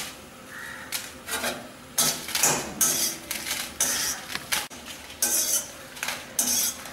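Metal spoon scraping and stirring dry red chillies in a stainless steel kadai while they roast: a run of irregular scrapes and clinks against the pan, about one or two a second.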